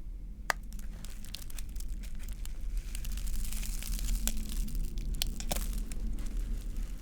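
Pop It fidget toy being handled and popped: a run of sharp clicks and pops with crinkling in between, busiest in the middle.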